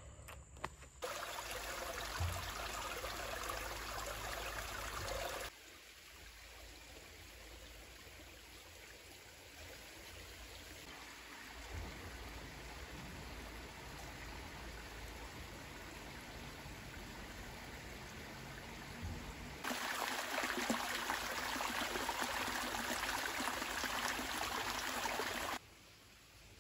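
Steady rushing of running water, like a small stream. It changes level abruptly several times: louder in the first few seconds, quieter through the middle, loudest near the end, then drops off sharply.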